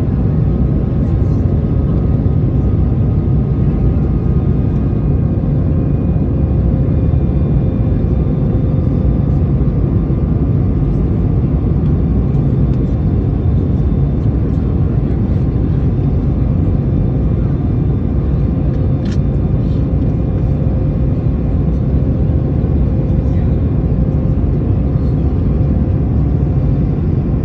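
Airbus A220 jet noise: a steady low roar with faint steady engine tones above it, and a single brief click about two-thirds of the way through.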